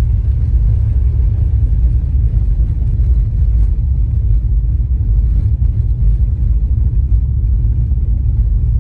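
Wind buffeting the camera microphone: a loud, steady, gusting low rumble.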